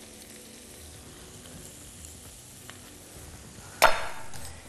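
Vegetables (fennel, zucchini, peppers and garlic) sizzling faintly and steadily in oil in a frying pan being reheated. Near the end, one sudden sharp knock.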